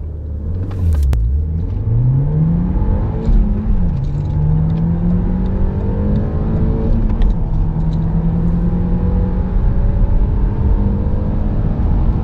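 Audi A4 2.0 TFSI turbocharged four-cylinder engine accelerating hard from a standstill at full throttle, heard inside the cabin. The engine note climbs in pitch and drops back at upshifts about four and seven seconds in.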